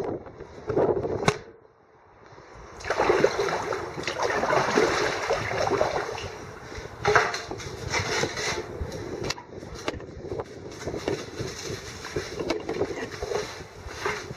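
Water splashing and churning around a kayak on a fast, flooded river, with uneven paddle splashes. The sound drops away briefly about two seconds in, then returns.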